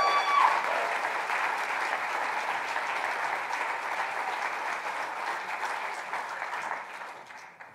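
Audience applauding a graduate, with one person's held whoop over the first half second; the clapping fades out near the end.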